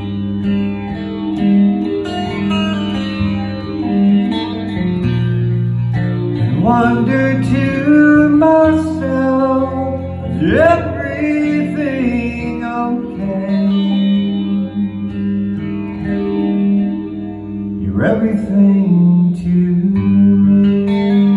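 Guitar music with a man's singing voice, slow and sustained, with a few rising slides in pitch near the middle and again near the end.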